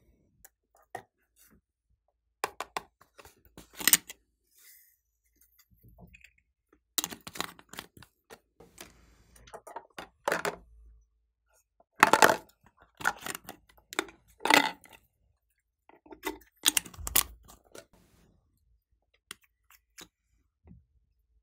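Clicks and rattles of small plastic glitter containers being handled, with glitter and sprinkles poured into a glass baking dish. The sounds come in irregular clusters with quiet pauses between them.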